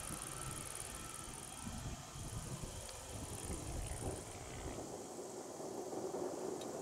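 Distant jet engines of a taxiing Boeing 757 (USAF C-32A) running at idle, a faint steady hum. Insects chirp high and steadily until about four seconds in, and a low wind rumble on the microphone drops away soon after.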